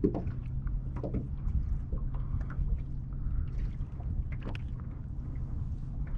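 Steady low hum and rumble on a small fishing boat, with scattered small clicks and knocks.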